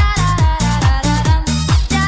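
Electronic dance music with a steady beat and a synth melody.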